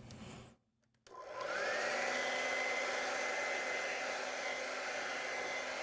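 Handheld hair dryer switched on about a second in: its motor whine rises as it spins up, then it blows steadily with a constant high whine over the rush of air.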